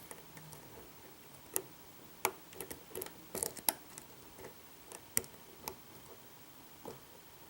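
Faint, irregular small clicks from a short hook picking the pins of a Vachette V5 pin-tumbler lock under light tension, about a dozen over several seconds: single-pin picking.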